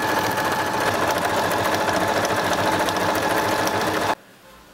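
Janome DC 4030 computerised sewing machine running at a steady speed, sewing a zigzag stitch: a constant motor whine over rapid needle clatter. It stops abruptly about four seconds in.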